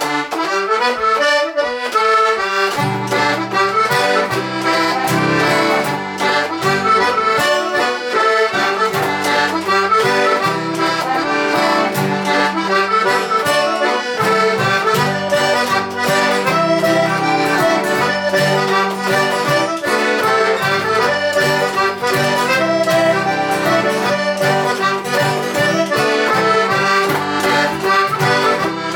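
Traditional Hebridean accordion tune playing as a steady music track. A low bass-and-chord accompaniment joins about two and a half seconds in.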